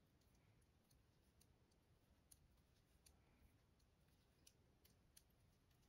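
Near silence, with faint, scattered clicks of metal circular knitting needles as stitches are purled.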